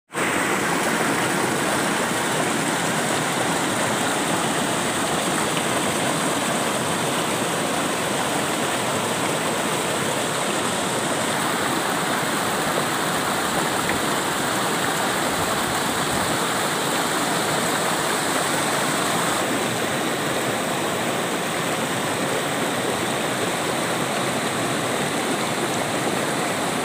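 Shallow river water rushing steadily over and around rocks.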